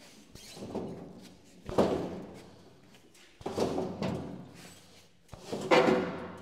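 Four heavy knocks at uneven intervals, each ringing on briefly before dying away, the last one loudest.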